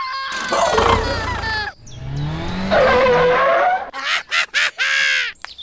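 Added sound effects: music cuts off about a second and a half in, then a motorbike engine revs with a rising pitch and its tyres skid. A few short, sharp sounds follow near the end.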